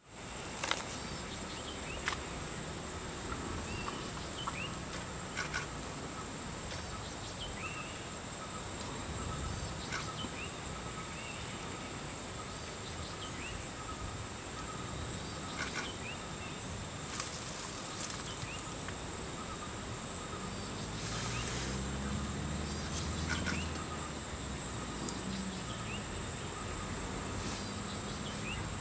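Outdoor wildlife ambience: a steady, high-pitched insect drone, with short bird chirps repeated every second or two. A low rumble comes in about two-thirds of the way through.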